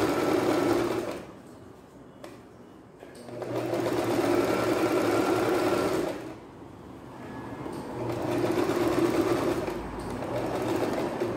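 Singer domestic electric sewing machine stitching a seam in stop-start runs, with pauses of a second or two between them.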